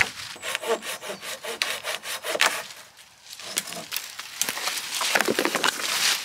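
Dead branches being handled and worked: repeated quick rasping, rubbing strokes of wood on wood among dry leaves and twigs. The strokes come in two runs with a short pause about three seconds in.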